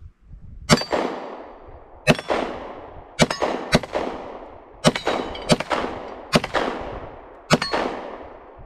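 Taurus PT1911 9mm pistol firing about eight shots in an uneven string, roughly one a second, with steel targets ringing after some of the hits.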